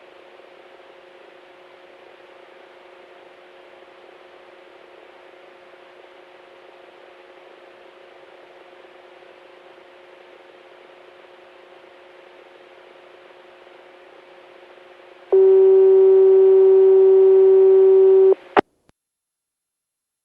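Analog disaster-prevention radio transmission heard through an iCOM IC-R2 scanner: a steady radio hiss with two faint hums. About fifteen seconds in, a loud buzzing tone comes in and holds for about three seconds, then cuts off with a sharp click.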